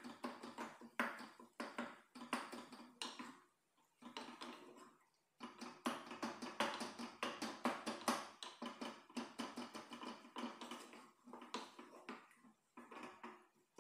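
Wooden spoon scraping and knocking against a pot while stirring, in quick irregular strokes, with two short breaks about four and five seconds in.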